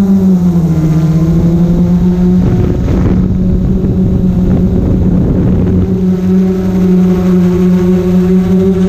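GoPro Karma quadcopter's propellers humming steadily, the pitch dipping about a second in and then settling back up. A rush of wind noise on the microphone joins it between about two and a half and six seconds in.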